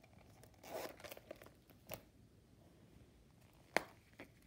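Faint rustling and light clicks of hands handling a small Louis Vuitton Zoe wallet in monogram canvas and leather, with one sharper click near the end.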